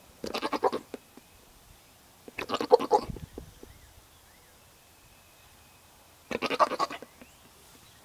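A goat making short, quickly pulsing bleat-like calls in three bursts, each under a second long.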